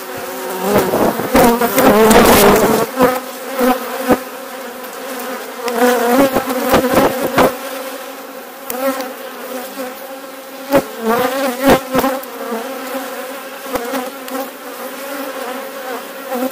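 Honeybees buzzing over an open hive, a dense steady hum of many bees with individual bees wavering in pitch as they pass close by, loudest about two seconds in. Scattered short, light knocks sound through it.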